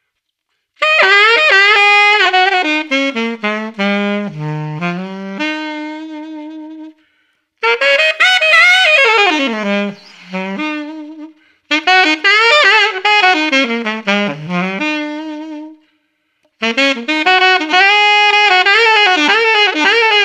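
Alto saxophone, unaccompanied, playing four short blues licks in C (concert E-flat). Each runs down the minor blues scale, dips to its lowest notes, then scoops up into the major third and settles on a held root.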